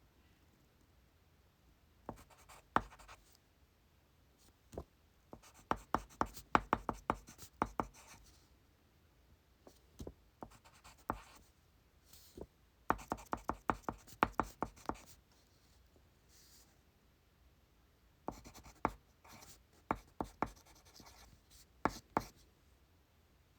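Pencil writing on paper in several bursts of quick, short strokes with pauses between, as in an exam room.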